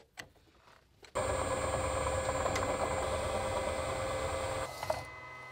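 Metal lathe running with a steady whine as a twist drill in a tailstock drill chuck bores into the spinning workpiece. The sound starts about a second in and drops off shortly before the end.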